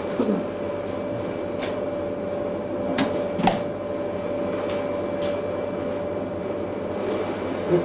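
Steady hum of laboratory equipment with one constant tone. A few short clicks and knocks sound over it, a pair about three seconds in and one near the end, as the lid of a small stainless-steel bench unit is handled.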